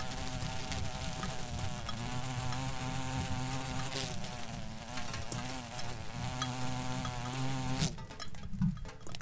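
Flies buzzing, the drone wavering slightly in pitch, over a low hum that comes and goes. The buzzing cuts off abruptly near the end, leaving a few soft knocks.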